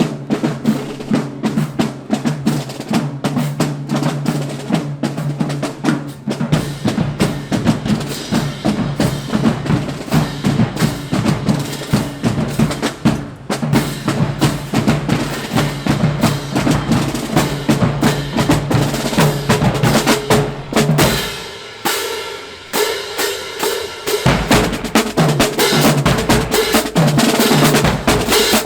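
Marching band drumline playing: rapid snare drums over bass drums in a steady rhythm. The bass drums drop out for a couple of seconds about two-thirds of the way through, then come back in.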